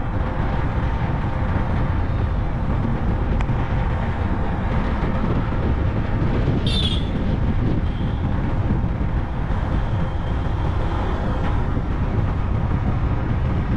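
Steady rumble of a vehicle on the move, running evenly, with a brief high chirp about seven seconds in.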